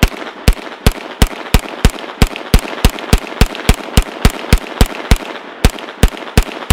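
B&T GHM9 9mm pistol fired semi-automatic in a fast, even string of about twenty shots, roughly three a second, each ringing out before the next. It is shooting Remington Golden Saber hollow points and cycling them without a stoppage.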